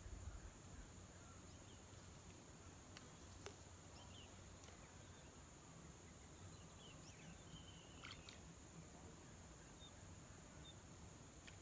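Near silence: faint outdoor ambience with a steady high-pitched insect drone and a few faint chirps.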